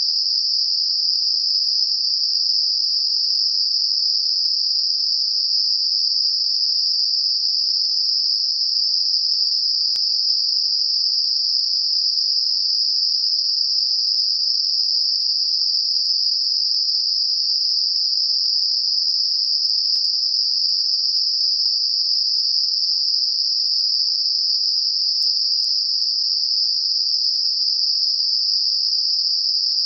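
Steady synthetic Gaussian narrow-band noise centred on 5 kHz: an even, unbroken high hiss with no other sound, made as a masker for high-frequency tinnitus.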